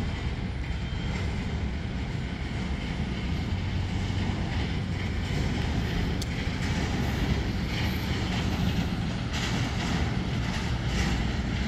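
Steady low rumble and hiss of airport background noise, even throughout, with no single event standing out.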